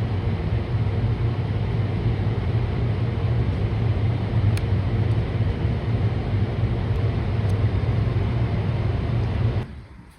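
Hot-stapler plastic welding gun buzzing steadily while a heated staple is pressed into a plastic body panel, stopping abruptly about nine and a half seconds in when the trigger is released.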